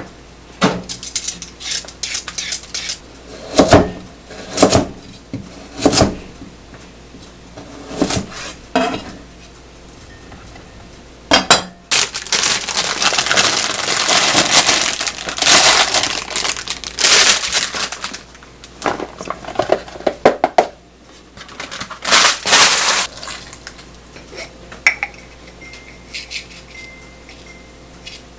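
Dishes and cutlery being handled: repeated clinks and knocks of crockery and utensils, with a stretch of steady rushing noise about twelve seconds in lasting several seconds, then a quieter end with a faint high tone.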